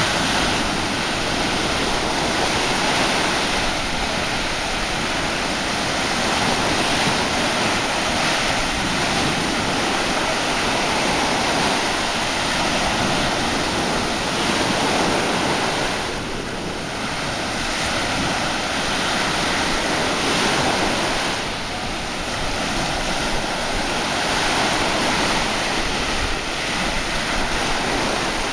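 Sea surf washing onto the shore, a continuous rush that swells and eases, with wind blowing on the microphone.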